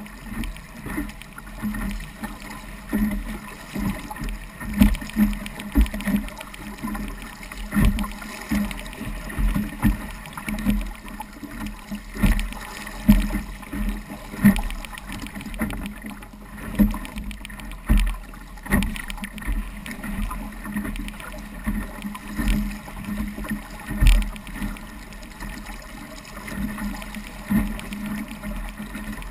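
Hull of a small Sabot sailing dinghy slapping into choppy waves under sail, with water rushing and splashing along the sides. The slaps come as irregular thuds, about one or two a second.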